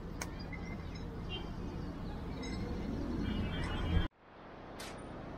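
Street ambience: a steady low traffic rumble with faint distant voices and a few short chirps and clicks. About four seconds in the sound cuts out abruptly, then fades back in.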